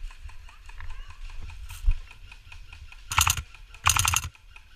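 Airsoft PPSh replica firing two short full-auto bursts, each a rapid string of clicks, the second starting about three-quarters of a second after the first. A low rumble runs underneath.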